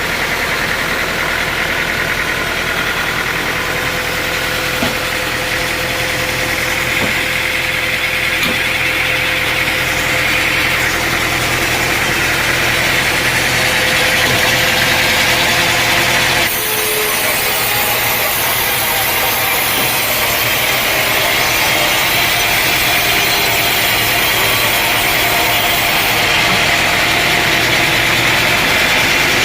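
Engine-driven sawmill machinery running steadily, with a sudden change in the pitch and texture of the noise about halfway through.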